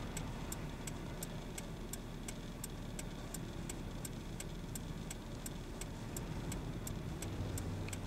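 A vehicle's hazard-light flasher ticking evenly, about three clicks a second, over a steady low rumble.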